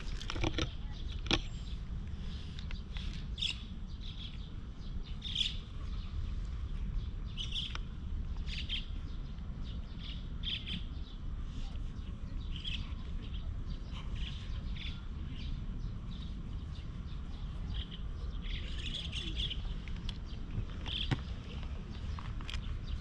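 Small birds chirping: short, high chirps roughly once a second, some in quick clusters, over a steady low rumble.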